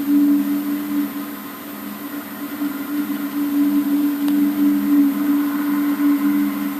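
A steady, loud low drone of two close tones that swells and eases without stopping, with no visible source: one of the unexplained 'strange sounds' recorded from the sky.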